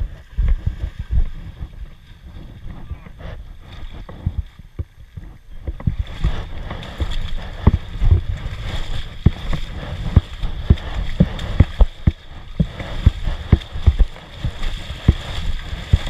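Water sloshing and splashing around boots wading through a shallow creek, with a low rumble and frequent sharp knocks and thumps, busier and louder from about six seconds in.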